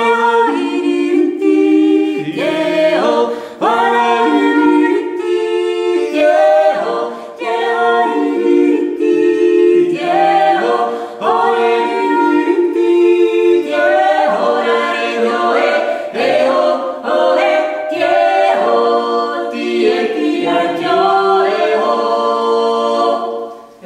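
A small group of voices yodelling a cappella in several-part harmony, on yodel syllables. The song dies away just before the end.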